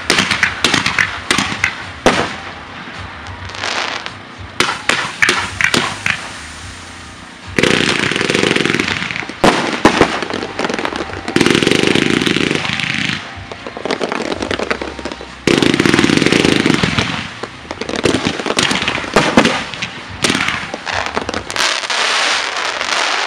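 Fireworks display going off: a rapid run of bangs and crackling, with three dense stretches of continuous rapid firing, each a couple of seconds long, about a third of the way in, around halfway, and about two-thirds of the way in.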